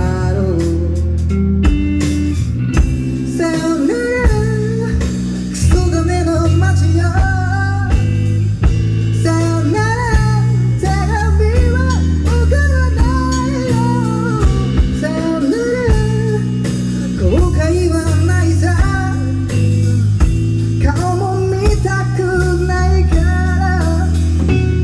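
Live band performance: electric guitar, bass and drums playing a blues-tinged rock song, with a wavering melody line carried over the steady low end.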